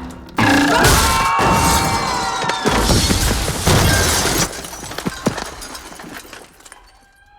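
Film soundtrack of crashing and shattering effects over music, loud at first, then thinning out and fading away near the end.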